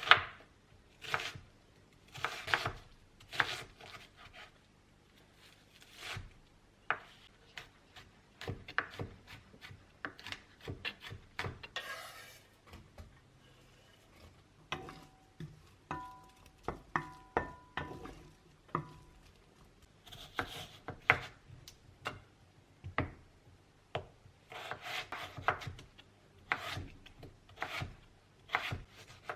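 Kitchen cooking sounds: scattered taps, knocks and rubbing of utensils and cookware, with a brief ringing of struck dishes or glass about midway.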